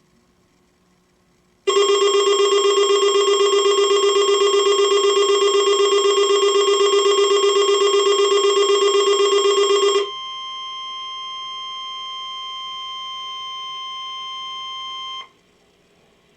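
Alert Works EAR-10 weather alert radio set off by a required weekly test. Its built-in alarm sounds first, a loud rapidly pulsing tone with many overtones, for about eight seconds. Then the radio's speaker plays the steady, quieter 1050 Hz NOAA Weather Radio warning alarm tone for about five seconds before it cuts off.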